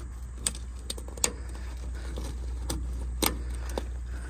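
Snap fasteners on a soft top's fabric being pressed shut onto a metal frame bar: a series of short, sharp clicks at irregular spacing, about six in four seconds, over a low steady hum.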